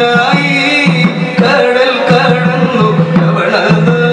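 Indian devotional accompaniment music: drum strokes over a steady held drone, with a melodic line above.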